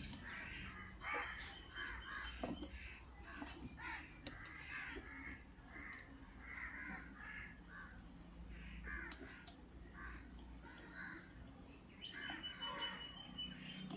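Faint, repeated bird calls in the background, with a few small clicks.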